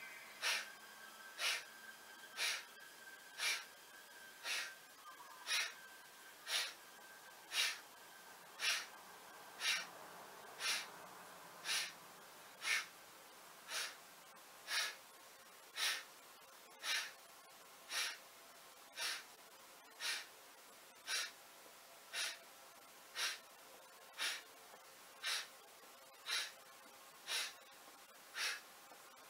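A man's sharp breaths out, about one a second in a steady rhythm, timed to the repetitions of a shoulder-pull exercise.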